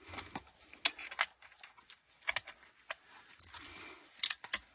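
Light metallic clicks and rattles at an irregular pace, about a dozen in all: small metal parts being handled.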